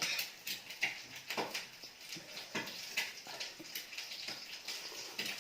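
Close-up eating sounds: a person chewing food, with irregular wet mouth clicks and smacks.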